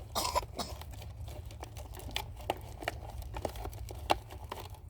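Rustling and a run of small irregular clicks from hands handling and tying the mouth of a bee feeder bottle, with a louder rustle just after the start and a sharp tick about four seconds in.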